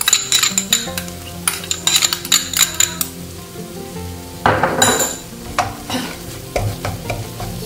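Spoon stirring and scraping in a frying pan of onions and tomatoes sizzling on high heat, with ginger-garlic paste just added: a run of quick scrapes, and a louder hiss about halfway through.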